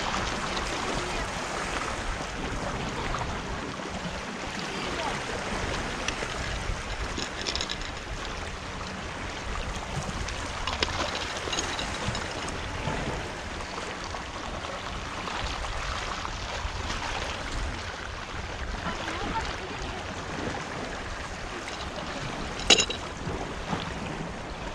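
Sea surf washing against the shore as a steady wash of water noise, with one sharp click near the end.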